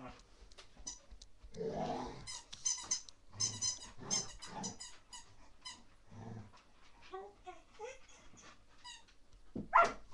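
Rottweiler puppy growling in bursts during a frenzied play session, with runs of quick high clicks between the growls and one loud short bark near the end.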